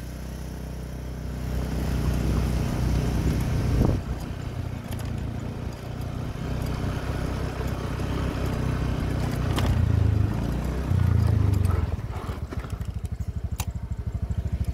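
Motorcycle engine running under way, its pitch shifting a little. About twelve seconds in it drops to a slow, even putter.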